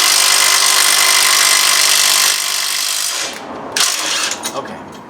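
Impact wrench running, drawing a new wheel stud into the hub through a lug nut and a wrench spacer. It eases a little after about two seconds and stops at about three seconds, followed by a few light clicks.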